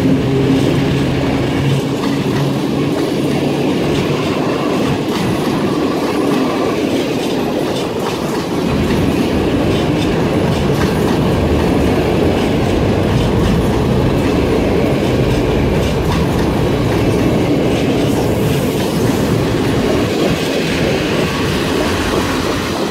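Passenger coaches of an EP09-hauled intercity train rolling past at low speed, wheels clicking over the rail joints with steady rolling noise. A hum from the electric locomotive fades out in the first few seconds.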